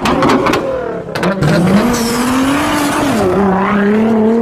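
Sports car engine revving as an intro sound effect, with a few sharp cracks in the first second and a half, then a held rev whose pitch dips slightly about three seconds in.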